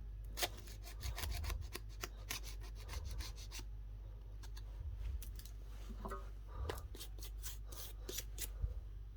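A small hand tool scraping and clicking against an iPhone 14 Pro Max's back glass. It makes irregular runs of sharp ticks and scrapes, with short pauses between them.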